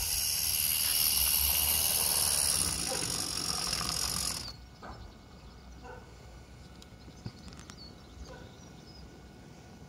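Steam hissing steadily from a Regner No. 102 live-steam tram, cut off abruptly about four and a half seconds in, then faint scattered ticks and clicks from the stopped engine.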